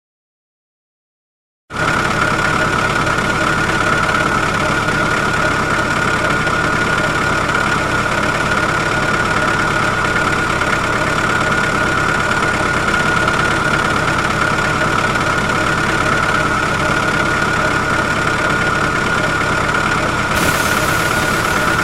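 An engine running steadily under a high steady whine, starting abruptly about two seconds in after a short silence.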